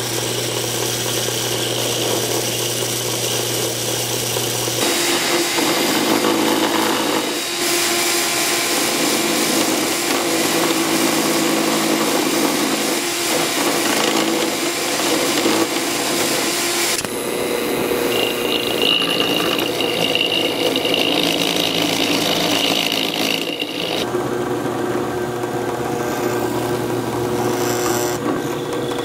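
Drill press running with a bit cutting a slot in a wooden board: a steady motor hum with the rasp of the bit chewing through the wood, changing abruptly several times. Near the end the same drill press bores a small hole.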